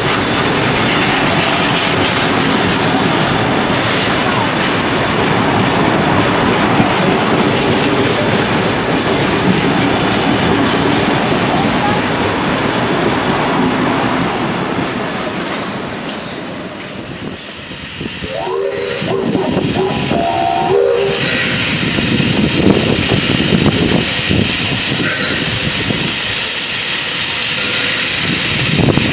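Heritage passenger carriages rolling past at close range, a steady rumble and clatter of wheels on rails that fades a little past halfway. Then, after a short lull, the C32-class steam locomotive 3237 working out of the station, with hissing steam and the noise of its running gear.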